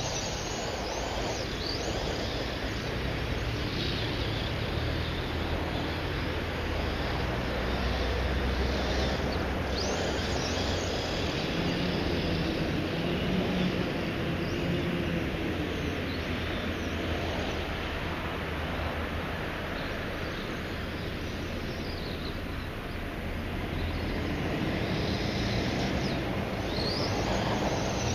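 Brushless electric motor of a Kyosho Scorpion XXL RC buggy, driven by a VESC on 6S, whining up and down in pitch as the car accelerates and slows. The whines come near the start, about ten seconds in and near the end, over a steady rushing background noise.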